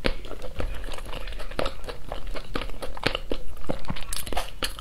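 Close-up crunching and chewing of a mouthful of sauce-glazed fried chicken wing: an irregular run of crisp crackles, several a second.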